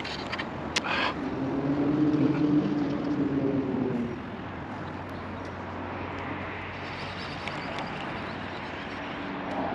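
A motor passing by: a low hum that swells for about two seconds and then fades. A few sharp clicks come just before it.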